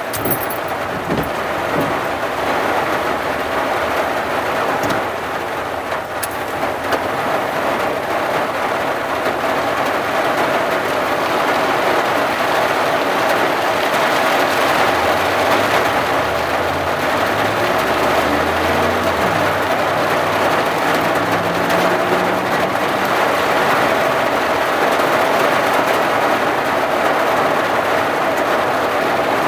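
Heavy rain beating steadily on a vehicle's windshield and roof, heard from inside the cab. A low hum rises and falls around the middle.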